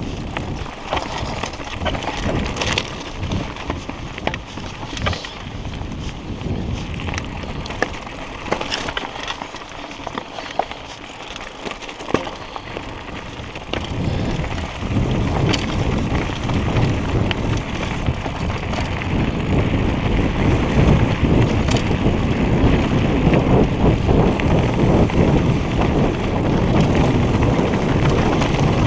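Mountain bike rolling fast down a rocky singletrack: tyres crunching over loose stones with many clicks and knocks as the bike rattles over rocks, and wind buffeting the microphone. The low rumble grows louder from about halfway through.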